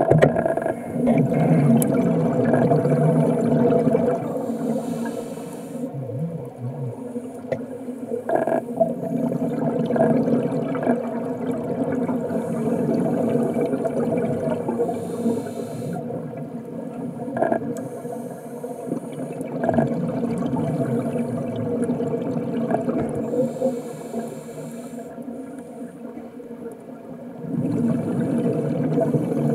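Muffled underwater sound of scuba divers breathing through their regulators, with rushes of exhaled bubbles that swell and fade every few seconds over a steady low drone.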